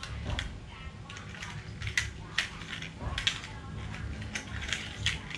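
Small plastic toy cars pushed and set down on a tiled floor: irregular clicks and rattles of their wheels and plastic bodies.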